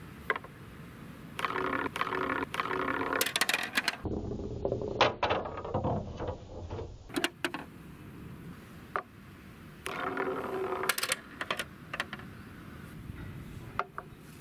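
Small plastic balls rolling along a wooden bench's slats, a rattling rumble that ends in sharp clicks and knocks as they reach the plastic toy garage. It happens twice, with more clattering of the toy in between.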